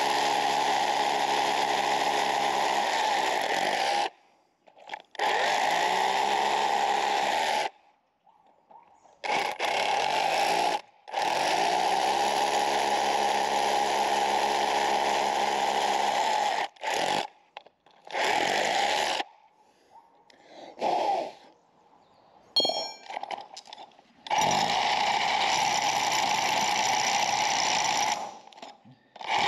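Parkside Performance 20 V cordless rotary hammer hammer-drilling into a masonry wall. It runs in repeated bursts, from a fraction of a second to about five seconds long, and the motor winds down after each stop.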